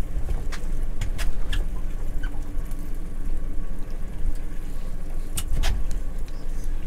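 A steady low rumble with scattered sharp clicks and knocks as a fishing rod and spinning reel are worked, jigging a sabiki rig and winding in.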